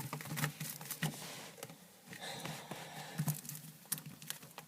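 Sheets of paper and their packaging being handled: soft rustling with a few light taps and clicks.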